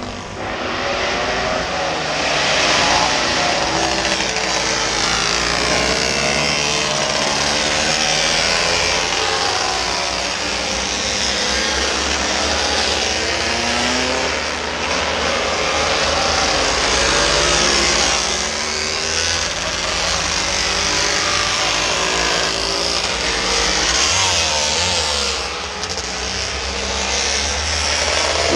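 Several racing motorcycles going round a road circuit, their engines revving up and down in continuous overlapping waves as they pass one after another.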